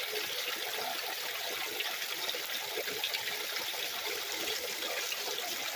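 Small waterfall on a woodland stream, water trickling and splashing steadily.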